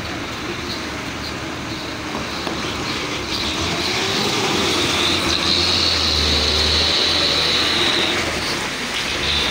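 Heavy truck driving slowly past at close range through mud and standing water. Its engine rumble grows louder midway as it passes, and a high steady squeal is heard over the middle of the pass.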